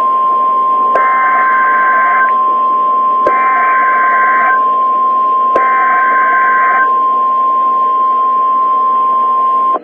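NOAA Weather Radio warning alarm tone: a steady, loud single tone of about 1050 Hz that runs for almost ten seconds and cuts off abruptly near the end. Three equal bursts of screeching SAME digital header data, each about a second and a half long, sound over it, with a faint radio hiss underneath. This is the alert signal that comes before a severe thunderstorm warning.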